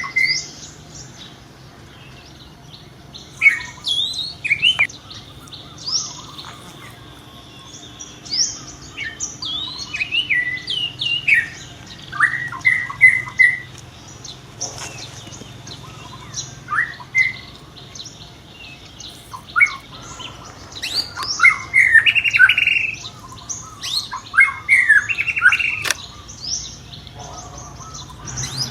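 Baby monkey giving repeated short, high-pitched squeaks and squeals in bursts, with a louder, busier run of cries near the end.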